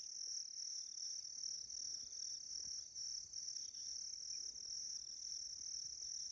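Crickets chirring in a steady, high-pitched pulsing trill.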